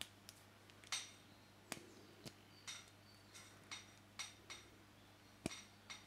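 Faint, irregular small clicks and ticks of solid copper wire being pushed into a plastic SpliceLine in-line wire connector, fingers handling the cable and the plastic body.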